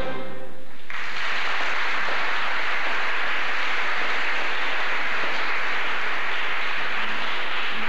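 A sung choral chord ends, and about a second in a theatre audience breaks into steady applause.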